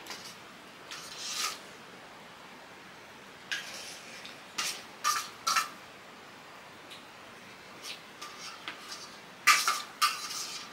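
Scattered short scrapes and clinks of utensils against cookware, some with a brief metallic ring, in small clusters with the loudest about nine and a half seconds in.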